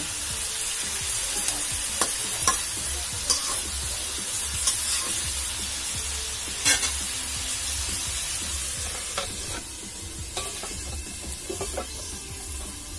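Bottle gourd and spice paste frying in a karahi, a steady sizzle, while a spatula stirs and scrapes, clicking against the pan now and then; this is the stage of frying down the spices. The sizzle gets softer in the last few seconds, with a few clinks as a metal lid is set on the pan.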